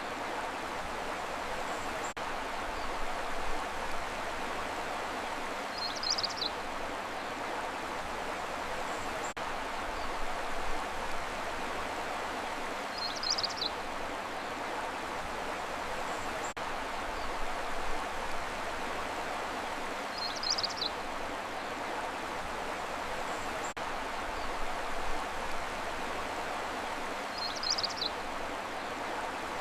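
Steady rushing of a stream. A short high chirp repeats about every seven seconds, four times, the same each time.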